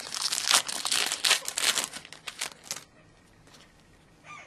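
Foil wrapper of a Panini Certified hockey card pack crinkling and tearing as it is ripped open by hand, in rapid crackles that stop about three seconds in.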